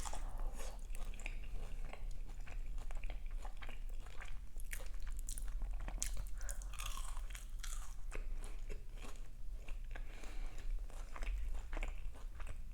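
Close-miked chewing of a crunchy croquette filled with mashed potato and chicken: many small crackles and wet mouth clicks, steady throughout.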